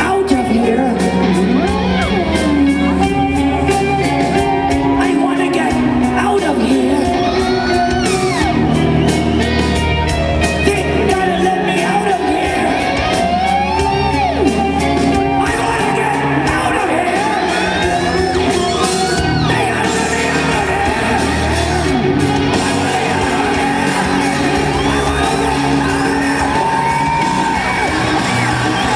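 Live rock band playing at full volume while a male singer sings and shouts through a microphone, with a large hall's echo.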